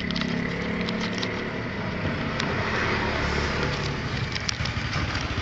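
Clear plastic packaging of an LED headlight bulb crinkling and crackling in the hands, with scattered sharp clicks, over a steady low rumble.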